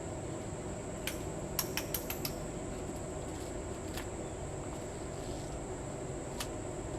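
A few sharp clicks, including a quick run of about five near two seconds in, over a steady background hiss with a constant high whine.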